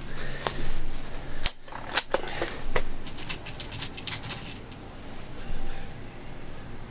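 A run of sharp mechanical clicks and clatters, with two loud snaps about half a second apart near the start, typical of handling and working the action of a Hatsan 80 air rifle.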